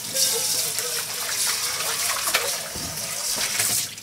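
Kitchen tap running, water splashing into and over a stainless steel bowl as it is rinsed in the sink, with a few light knocks of the bowl; the tap is shut off just before the end.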